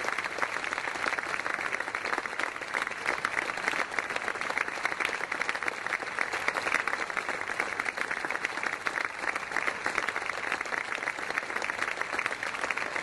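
A crowd applauding: steady, dense clapping of many hands.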